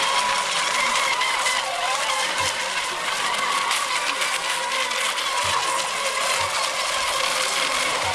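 Several electric FSR-E radio-controlled racing boats running together at speed: a steady whine from their motors and propellers, wavering slightly in pitch, over a steady hiss.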